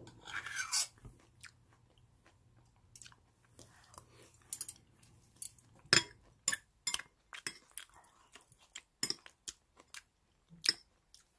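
Close chewing and crunching of radish microgreens with rice porridge, with scattered sharp clicks of metal chopsticks and a spoon against the plate and pot. A spoon scrapes the steel pot in the first second.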